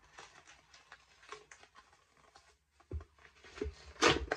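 Purchases and their packaging handled close to the microphone: scattered light rustles and taps, a soft low bump about three seconds in and a louder knock near the end.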